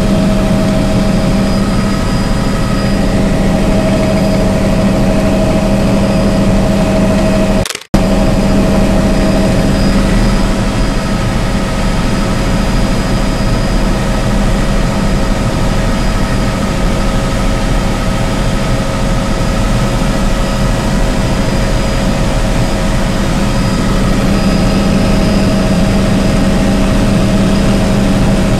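Helicopter in flight heard from inside the cabin: a loud, steady drone of engine and rotor with a constant low hum and a fainter high whine. The sound breaks off for an instant about eight seconds in.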